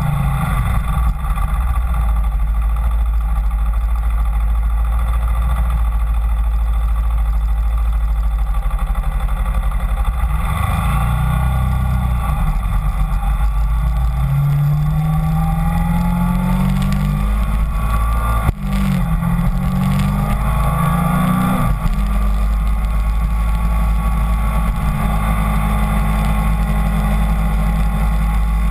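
Kawasaki Ninja 250 motorcycle engine running under way, with heavy wind rumble on the microphone. Past the middle the engine note climbs, breaks at a sharp click, then climbs again as the bike accelerates through the gears.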